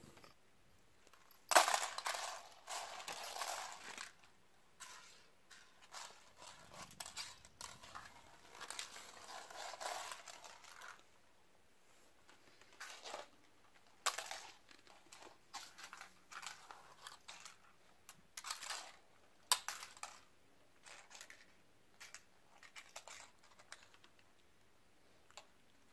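Plastic coil spring cat toys clattering and sliding on a wooden floor as a kitten bats and noses at them: scattered light clicks and rustling, with longer rustling stretches near the start and again about a third of the way in.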